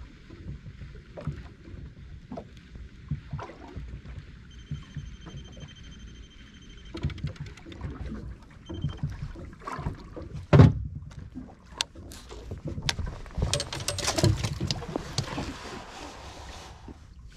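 A fish being reeled in on a spinning reel aboard a small fibreglass boat, with irregular knocks and clicks of handling over a low rumble. There is a single loud knock about ten seconds in, then a run of clatter near the end as the fish is brought aboard and handled.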